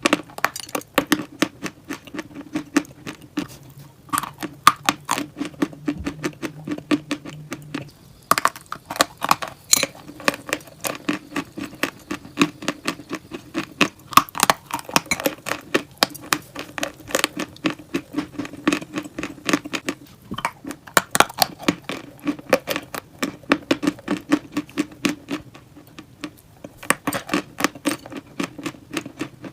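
Crunchy chalk and clay being bitten and chewed close to the microphone: dense sharp crunches, several a second, with brief pauses between bites.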